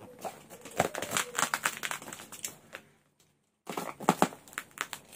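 Plastic wrapping and packing tape on a cardboard parcel crinkling and crackling as it is handled and slit open with a utility knife, with a brief break about three seconds in.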